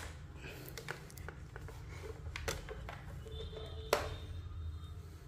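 A few sharp handling clicks and knocks as a blender's plug is pulled from a voltage converter and the blender is lifted away, with the loudest knock about four seconds in, over a steady low hum.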